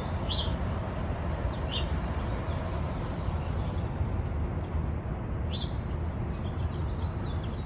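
Outdoor ambience: a few short, high bird chirps over a steady low rumble.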